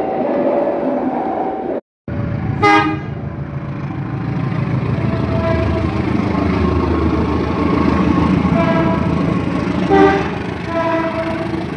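Short, loud train horn blasts: one just after an edit cut and another about ten seconds in. Between them a train rumbles steadily, growing louder towards the middle.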